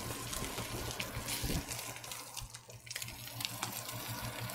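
Double-cut pork chops searing in a hot cast-iron skillet: a steady, even hissing sizzle, over a steady low hum.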